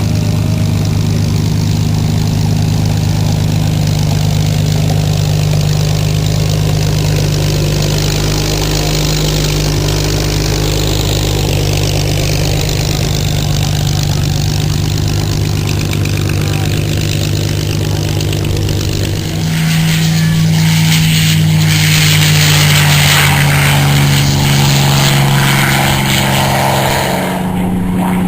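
Piston-engined propeller aircraft's engine running steadily. About two-thirds of the way in it is throttled up: the pitch steps higher and it gets louder.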